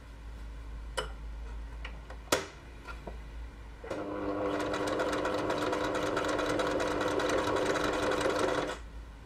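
Pfaff electric sewing machine stitching through fabric, a steady run of rapid needle strokes that starts about four seconds in and stops shortly before the end. Before it come a couple of sharp clicks, the second the loudest sound.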